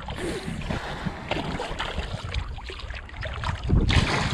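Water sloshing around a wading angler, with wind on the microphone, then a louder splash near the end as a landing net scoops a hooked fish out of the water.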